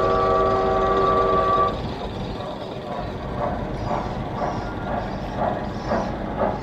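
Steam locomotive whistle sounding a steady multi-note chord that cuts off about two seconds in, followed by rhythmic chuffing about twice a second, played as a sound effect by the static 1925 MÁV-built JŽ 51-007 museum locomotive while it puffs steam from its chimney.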